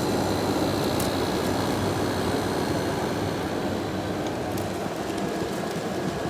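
Early-to-mid-1990s Amana 10,000 BTU window air conditioner running steadily on low cool: its fan blowing air and its rotary compressor humming.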